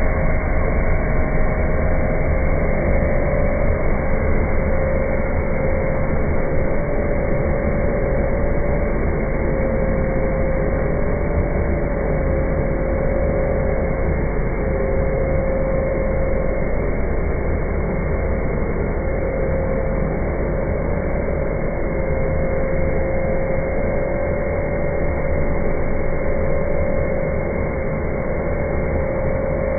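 CNC router running: a steady whine over a low machine rumble.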